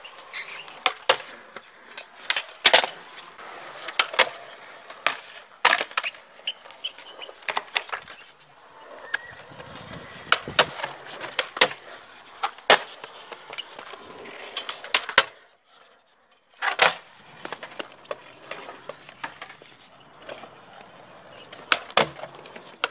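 Skateboard wheels rolling on concrete, with many sharp clacks as boards pop, land and strike concrete ledges. The sound drops out briefly about two-thirds of the way through.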